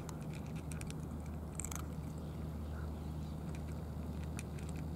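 Several cats eating dry cat food from trays: scattered short crunches and clicks of chewing kibble. Under them runs a steady low mechanical hum.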